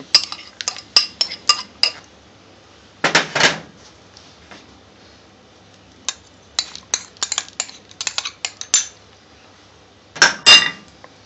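Utensils and dishes clinking and clattering: quick sharp clicks, a brief louder clatter about three seconds in, and more clicks after six seconds. A loud clatter near the end comes as chopped green chilies are tipped into a plastic mixing bowl.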